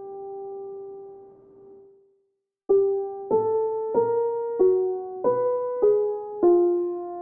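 Slow, soft piano music: a held note fades away, a brief pause, then single notes struck about every half second, each ringing out, the last one held.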